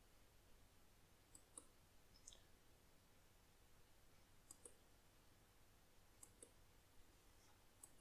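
Faint computer mouse clicks over near silence, mostly in quick pairs, coming a few times a second or two apart.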